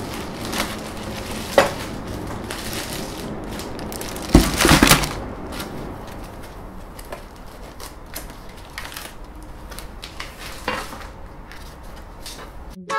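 Metal 3D-printer parts and their packaging being handled and packed into a box: irregular clunks, clicks and rustling, with a louder clatter about four seconds in.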